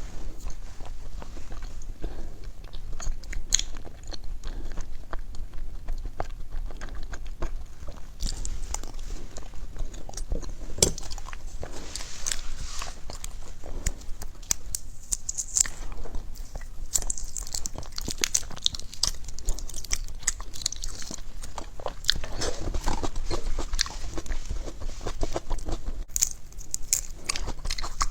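A person biting and chewing food, with many short sharp crunches following one another.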